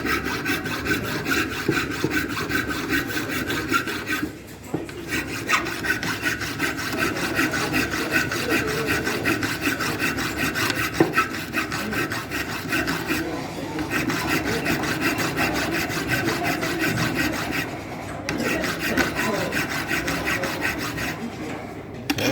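Milling machine cutter cutting a groove into a mild steel block, a steady rasping cut that briefly drops out about four seconds in, again around thirteen and eighteen seconds, and stops shortly before the end.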